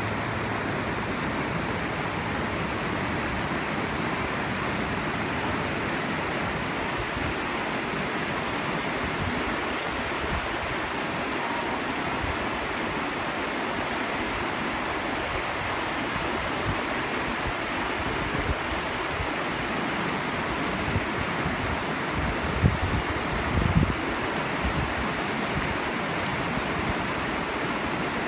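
Sheep River rushing steadily over stones and rapids. A few brief low thumps come near the end.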